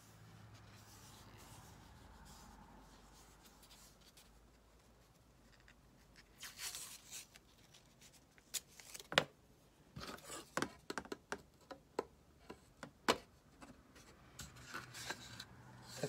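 Quiet handling sounds of a wooden shelf rack being assembled: painter's tape pulled and torn from the roll and pressed down, with light clicks and knocks of the thin wooden shelf pieces. The first few seconds hold only a faint low hum; the handling starts about six seconds in.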